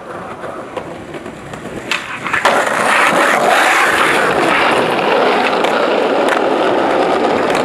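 Skateboard wheels rolling over rough asphalt, much louder from about two and a half seconds in, with a sharp clack of the board a little after six seconds.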